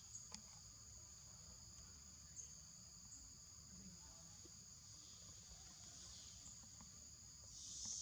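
Faint, steady high-pitched chorus of insects, swelling briefly near the end, over a low rumble.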